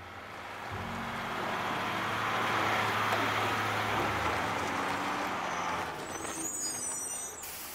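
Large truck driving past: its engine rumble swells and then fades, with a high brake squeal near the end that cuts off suddenly.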